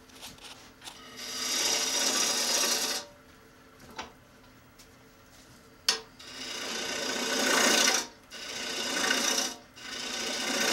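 Bowl gouge shaving wood from a bowl blank spinning on an electric lathe: three rasping cuts, the first a couple of seconds long, the last two close together in the second half. The lathe motor hums steadily underneath, and there is one sharp click midway.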